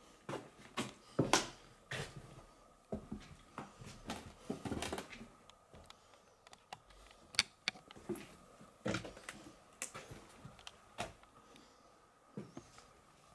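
Footsteps crunching and scuffing over debris and loose boards on a derelict floor, an irregular run of clicks and cracks with a denser scrunch about four seconds in. A faint steady tone sits underneath.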